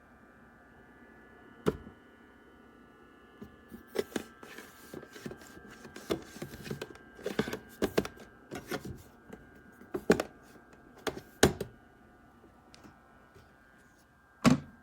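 Irregular clicks and knocks of things being handled, bunched in the middle and coming a few times a second at their densest, over a faint steady hum.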